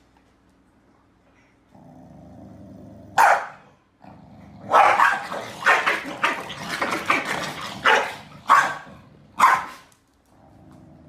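A dog barking in loud, sharp bursts: a single bark about three seconds in, a rapid run of barks from about five to eight seconds, then three more separate barks. A low steady hum lies underneath from about two seconds in.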